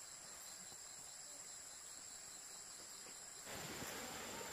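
Faint, steady high-pitched chirring of insects over low background noise. About three and a half seconds in, the background noise abruptly gets louder.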